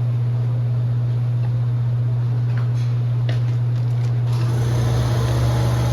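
A steady low machine hum, like a shop fan or air handler, with a few light clicks of parts being handled about halfway through.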